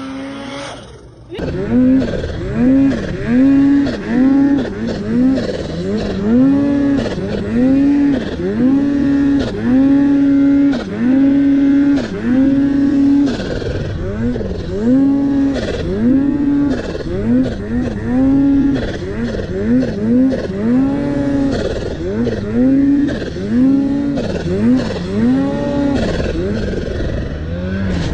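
Snowmobile engine revved over and over as the rider blips the throttle riding through deep powder: the pitch climbs, holds briefly and drops again roughly once a second.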